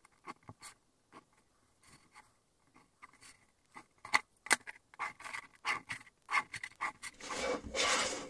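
Pen drawing lines along a steel ruler on graph paper: short scratchy strokes and small knocks as the ruler is moved and set down. A longer, louder rubbing scrape comes near the end.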